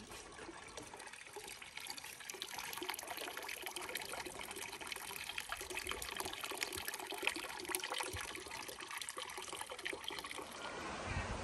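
Water pouring from a short metal pipe spout into a stone fountain trough, a steady trickle splashing onto the water's surface, louder after the first couple of seconds.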